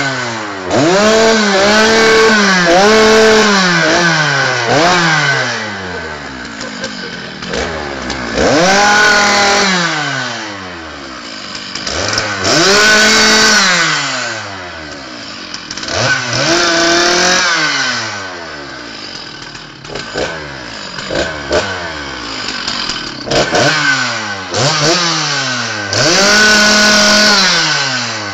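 Two-stroke chainsaw revved again and again: each burst climbs to a high, steady whine, holds for a second or two, then winds back down to idle, about seven or eight times.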